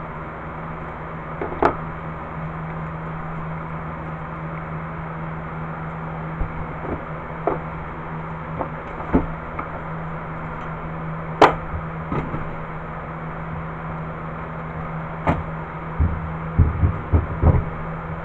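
Hard plastic tool carrying case being handled, closed and moved, giving scattered knocks and clicks; the sharpest knock comes about halfway through and a quick run of knocks near the end, over a steady low hum.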